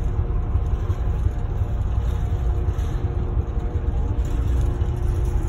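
Steady low rumble of a ferry under way, with a faint steady hum above it.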